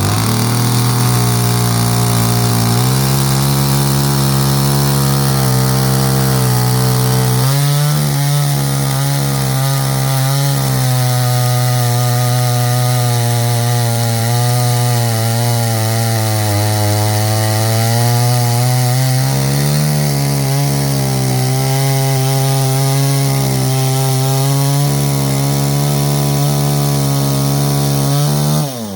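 Two-stroke chainsaw running at high revs, cutting firewood; its engine note wavers as the chain bites the wood, then drops briefly near the end before revving up again.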